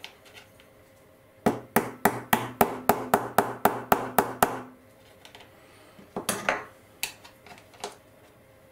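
Small hammer tapping brass bearings home into a model bogie side frame: about a dozen quick light taps, some four a second. A few seconds later come a short scrape and a few lighter clicks as the parts are handled.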